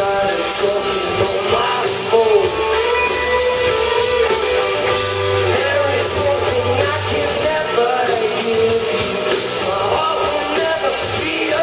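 Live rock band playing, with electric guitars and drums under a sung melody, heard loud and roomy from the audience.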